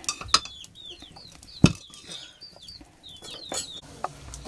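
Chickens giving short, repeated high calls, mixed with sharp knocks of a metal spoon against cooking pots and plates as rice is served. The loudest knock comes about one and a half seconds in.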